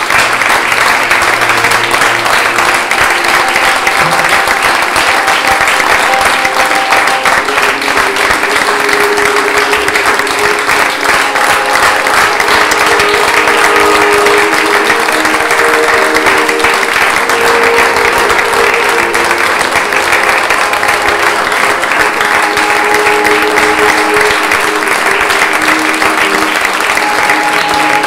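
A theatre audience applauding steadily, many hands clapping at once, over music with held notes.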